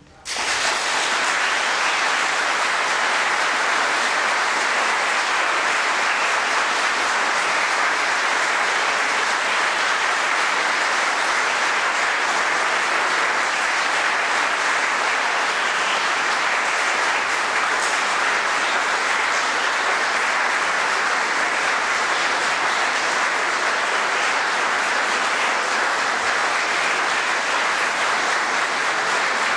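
Audience applauding. The clapping starts suddenly right at the beginning and keeps up at an even level throughout.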